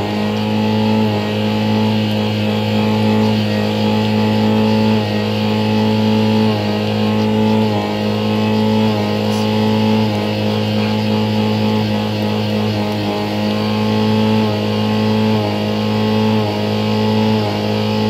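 Car engine held at high revs under the accelerator pedal, a steady loud drone at nearly constant pitch that dips slightly every second or so as the throttle eases and comes back.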